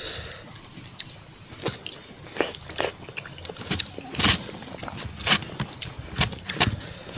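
A person chewing spicy chicken curry and chewy mushrooms up close, with irregular wet smacks and clicks of the mouth. A steady high-pitched whine runs underneath.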